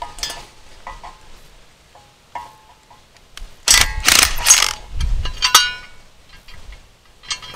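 Craftsman cordless impact driver running for about a second, starting a few seconds in, backing a concrete screw out through a steel 4x4 post bracket, followed by ringing metal clinks as the bracket is handled, with small clicks before and after.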